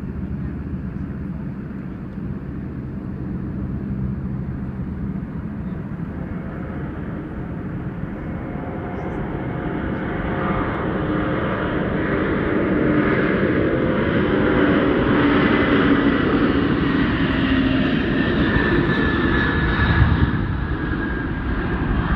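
Antonov An-124's four D-18T turbofan engines at takeoff power during the takeoff roll: a low rumble that swells into a louder roar with whining tones as the aircraft passes. A brief low thump comes near the end.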